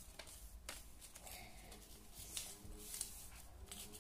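Sheet of paper being folded by hand into a paper aeroplane: soft rustles and crinkles as the folds are pressed and creased, several separate short crinkles.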